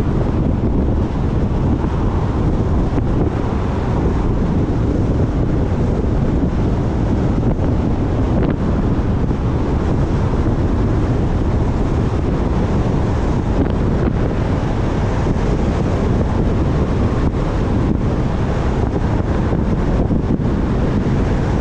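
Steady low rush of wind and road noise from a moving car, with wind buffeting the microphone of a suction-cup-mounted camera.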